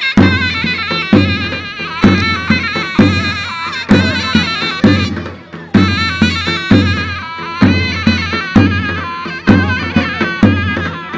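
Turkish folk dance music on zurna and davul: a shrill, wavering double-reed melody over heavy bass-drum strokes, about one a second with lighter off-beat hits.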